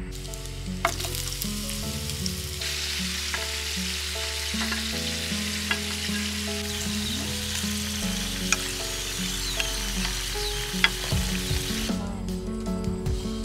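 Oil sizzling in a frying pan as cubes of tuber fry in it, with a few sharp pops, until the sizzle stops about twelve seconds in. Background music with a steady beat plays throughout.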